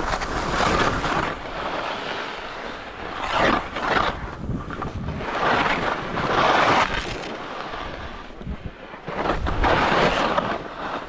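Wind rushing over a helmet- or body-mounted action camera's microphone during a fast run down a snow slope. The noise swells and fades about four times, like edges scraping the snow through successive turns.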